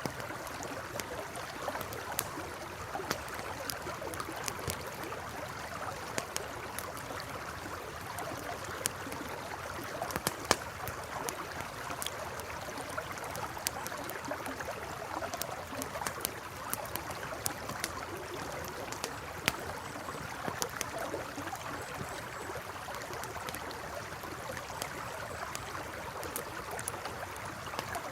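Campfire crackling with irregular sharp pops over the steady rush of a flowing river.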